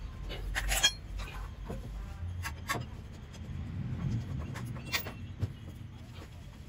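Scattered metal clicks and clinks of a wrench working the bolts of a front brake caliper bracket, the sharpest a little under a second in.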